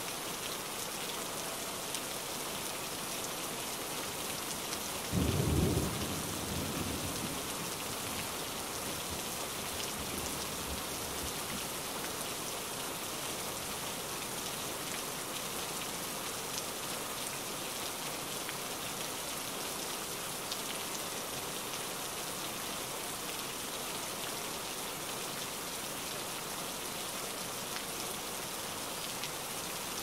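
Rain-and-thunder ambience: a steady hiss of falling rain, with a low rumble of thunder about five seconds in that dies away over several seconds.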